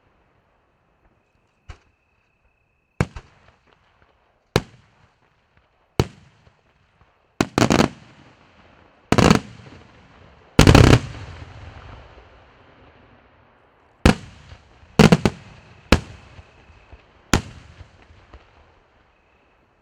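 Fireworks shells bursting in a night display: about a dozen sharp bangs at irregular intervals, some in quick pairs. The loudest comes about halfway through and rumbles on for a second or two.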